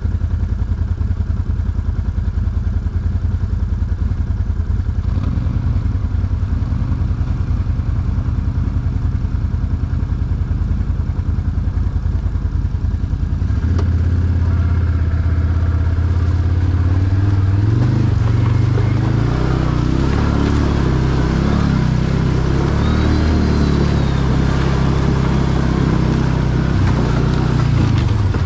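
ATV (quad) engine running at a low, pulsing idle, then about halfway in picking up to a steadier, louder note, with the pitch rising and falling as it is revved in the second half.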